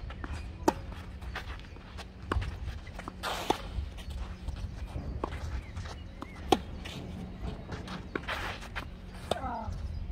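Tennis rally on a clay court: a string of sharp pops from racket strings hitting the ball and the ball bouncing, every second or two, with the near player's shoes scuffing and sliding on the clay between shots. The loudest pop, about six and a half seconds in, is the near player's forehand.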